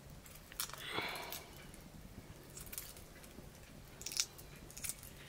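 Hard-boiled eggshell cracking and crackling as it is peeled off by hand, in scattered small clicks, with a sharper click about four seconds in. A brief higher-pitched sound comes about a second in.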